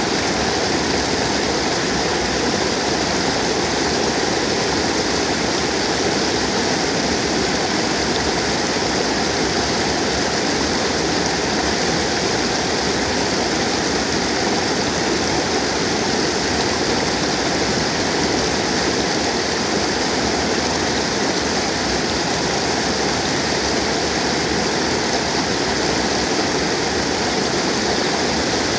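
Stream in flood: muddy floodwater pouring over a low drop and churning at its foot, a steady, loud rush of water that holds level throughout.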